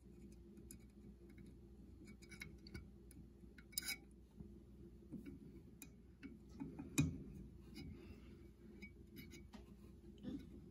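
Faint, scattered metallic clicks and ticks of an Allen key working the set screw on a pellet stove combustion blower's fan hub, with a sharper click about seven seconds in.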